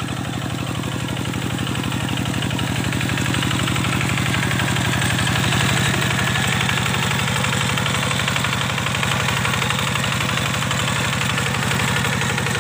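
Kubota diesel engine running steadily with an even firing beat. It grows slightly louder over the first few seconds, then holds.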